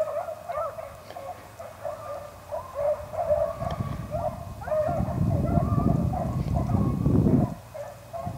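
A pack of beagles baying on a rabbit's trail: a string of short, overlapping pitched yelps and bawls that goes on throughout. A low rumbling noise rises under it for a few seconds in the middle.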